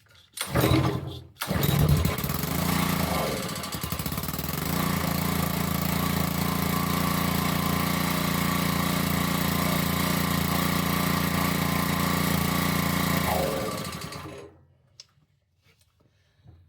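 Honda GC190 single-cylinder engine on a pressure washer, pull-started: a first pull, then it catches on the second about two seconds in. It settles and runs steadily for about ten seconds, then winds down and stops near the end. It now runs because the vacuum-driven fuel pump has been reconnected to the engine.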